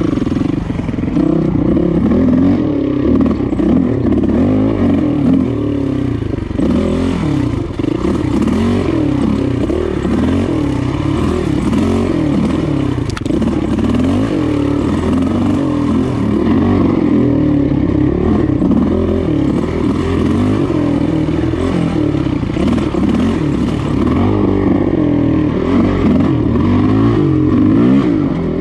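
Dirt bike engine under way on rough single track, revving up and down over and over as the throttle is worked, the pitch rising and falling every second or two.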